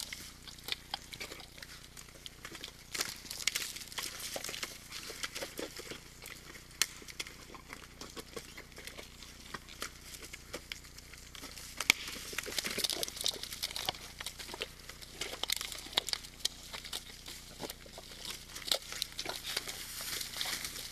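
Red deer moving about in a mud wallow: irregular wet squelches, splashes and clicks of hooves and bodies in soft, wet mud.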